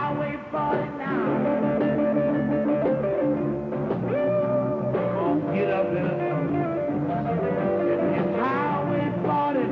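Live electric blues band playing, with guitar. Over a steady held accompaniment, a lead line bends up into high notes several times.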